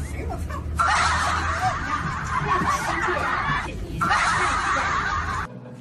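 Laughter in two stretches, the first about three seconds long and the second about a second and a half, each starting and stopping abruptly over a low steady hum.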